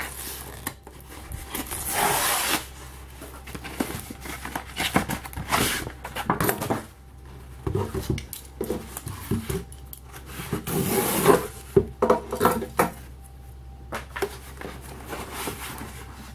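A cardboard mailer being handled and opened by hand: irregular rustling, scraping and light knocks, with two longer rips, about two seconds in and again about eleven seconds in.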